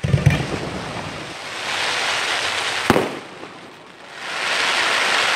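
Aerial firework shells bursting: a deep boom at the start and a sharp bang about three seconds in. Between and after them comes a steady crackling hiss from the bursting stars.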